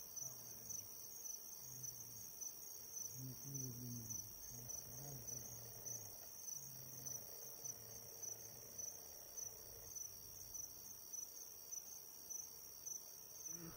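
Crickets chirping at night: a faint, high trill pulsing at an even rhythm.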